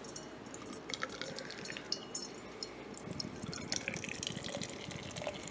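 Beer being poured into a glass: liquid splashing and dripping, with many small irregular crackles of the foam building up.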